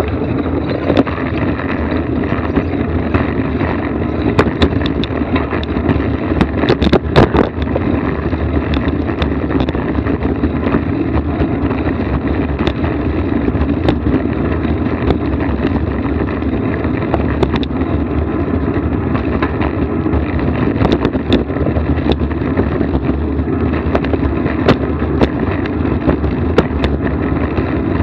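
Steady rumble and wind noise of a moving vehicle, with frequent short knocks and rattles from bumps along the way.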